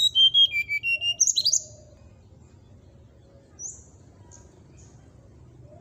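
Brown-chested jungle flycatcher singing a quick burst of clear whistled notes for about two seconds: a run of falling notes, then rising sweeps. A few faint short high calls follow.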